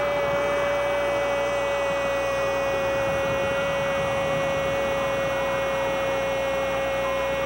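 A steady hum on one tone that sinks very slightly in pitch, over an even hiss.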